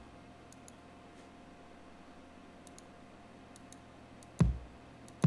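Faint mouse clicks in pairs, then a synthesized kick drum plays back once about four and a half seconds in and starts again right at the end. The kick is a 55 Hz sine wave pitch-bent downward: a short, tight, low thump that drops quickly in pitch.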